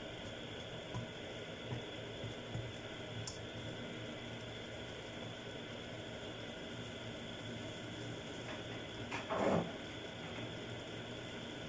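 Seafood mixture simmering in a pan on the stove: a steady, even bubbling and sizzling. A brief, louder sound comes about nine seconds in.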